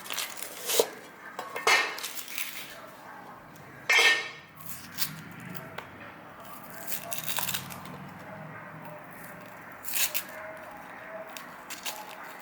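Knife cutting an onion on a cutting board: a few scattered chops and knocks, with a louder ringing metal clink about four seconds in.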